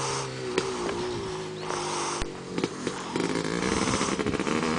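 Three-wheeler ATV engine running at a steady pitch while being ridden.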